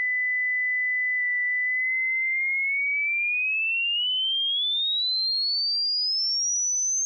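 Hearing-test sine tone: a single pure tone held at about 2,000 hertz for a second, then gliding smoothly and steadily upward toward 8,000 hertz. This sweep covers the range that anyone with normal hearing can hear.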